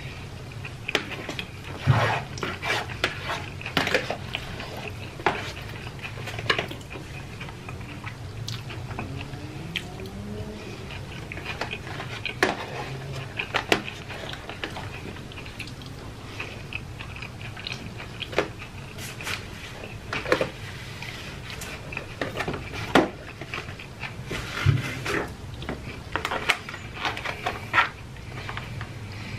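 Close-up chewing and mouth sounds of a man eating pasta, with a metal fork clicking and scraping against plastic takeout containers in many short, irregular clicks over a steady low hum.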